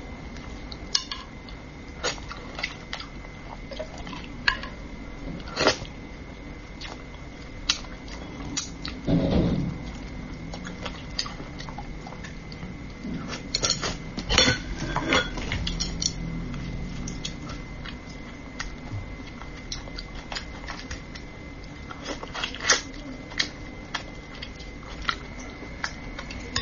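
Chopsticks clicking and tapping against a ceramic serving dish while picking through a braised fish, in scattered sharp clicks throughout, with a brief low muffled rumble about nine seconds in. A faint steady high-pitched tone sits underneath.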